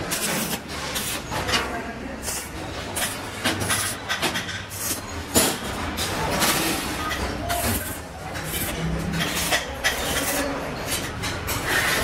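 Steel wire cage parts clinking and clattering as they are handled and set down on a steel worktable: irregular metallic knocks over a steady background noise.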